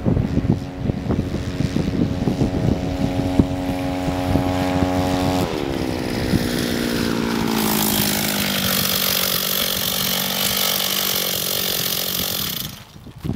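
Small 52cc bicycle engine of a motorized bicycle running steadily, then dropping in pitch as the rider slows, with a hiss growing louder as the bike comes near. It cuts off suddenly shortly before the end as the engine is shut down.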